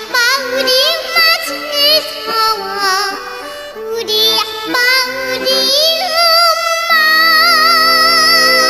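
A young girl singing with wide, quick vibrato over a steady instrumental accompaniment, holding one long note near the end.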